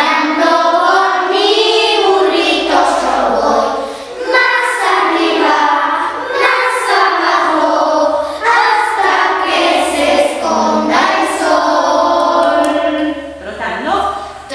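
Children's choir singing a song together, in phrases with short breaks about every four seconds.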